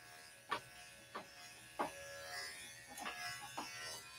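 Electric dog grooming clipper with a guard comb running faintly and steadily as it cuts the hair on a small dog's head, with a few short faint ticks along the way.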